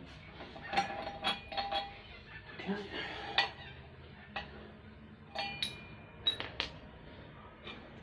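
Metal tools clinking and tapping against a stack of steel V-belt pulleys on an engine shaft as the drive pulley is worked loose; several strikes ring briefly.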